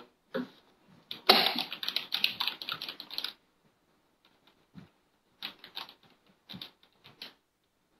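Typing on a computer keyboard: a quick run of keystrokes lasting about two seconds, a pause, then a few scattered keystrokes near the end.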